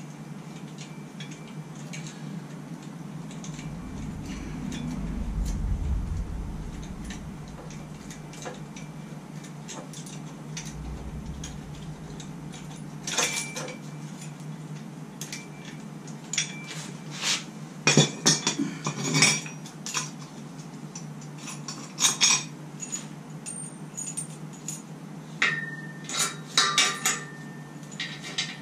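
Steel engine-stand mounting head and its bolts clinking and clanking as they are handled, with scattered sharp metal clanks in the second half. A low rumble comes a few seconds in.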